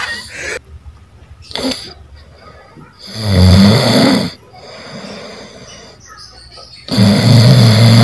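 A sleeping person snoring loudly: two long snores, each a little over a second, about four seconds apart.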